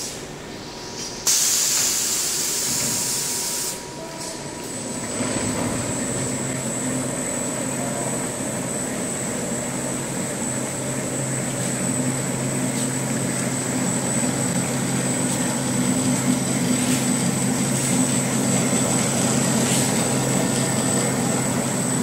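Cash register paper roll slitting and rewinding machine: a loud hiss for about two seconds, then the machine starts and runs steadily with a low hum and a thin high whine.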